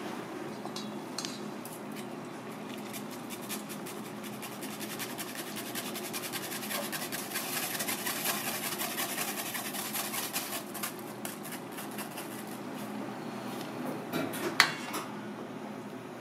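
A metal mesh strainer scraping and tapping against the side of a metal pot as miso is worked through it into simmering broth, a rapid run of light clinks over a steady hiss. One sharper metal clink comes near the end.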